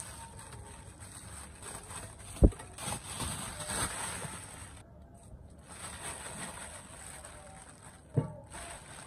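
Thin plastic bag rustling and crinkling as hands open it and work the dough inside, with a dull knock about two and a half seconds in and a softer one near the end.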